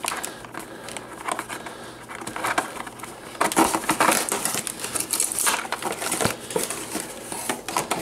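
Cardboard toy packaging rustling, crinkling and scraping as hands work a large Jabba the Hutt figure free of its box insert: a run of irregular crinkles and scrapes that grows louder about three and a half seconds in.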